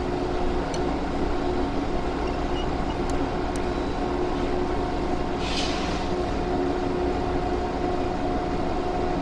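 Steady humming drone of machine-shop machinery running, with a constant pitched tone in it. A brief hiss comes about five and a half seconds in, with a few faint ticks.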